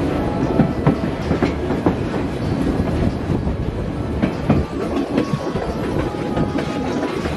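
Passenger car of the White Pass & Yukon Route narrow-gauge railway rolling along the track: a steady rumble of wheels on rail, with irregular clicks and knocks as the wheels pass over joints.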